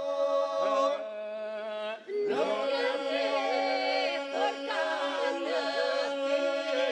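Albanian iso-polyphonic singing: unaccompanied voices sing moving melodic lines over a steadily held drone, the iso. There is a short break about two seconds in before the voices come back in.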